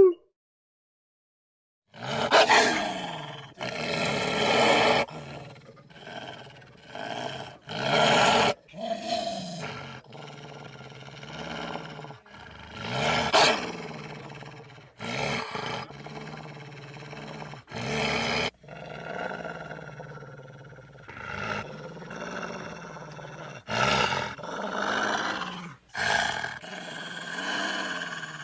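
Wolves growling and snarling in a string of short separate calls, starting about two seconds in, each a second or two long and cut off abruptly, some rising and falling in pitch.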